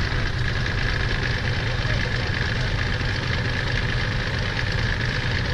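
Diesel engines of a bogged six-wheel dump truck and a Kubota tractor running steadily at low revs, a low engine hum with a steady high whine over it.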